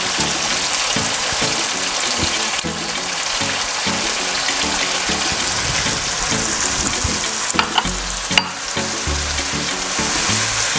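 Onion, tomato and barbecue sauce sizzling steadily in hot olive oil in a pan, with a couple of sharp clicks near the middle.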